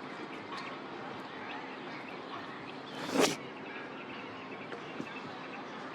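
Steady outdoor background noise with one sharp, loud pop a little over three seconds in.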